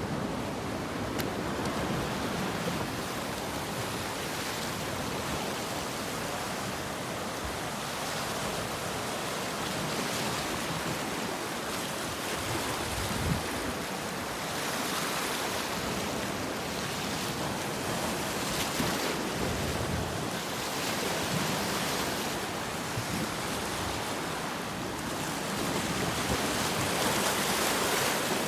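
Ocean waves washing onto the shore in a steady wash of surf noise, swelling and easing every few seconds.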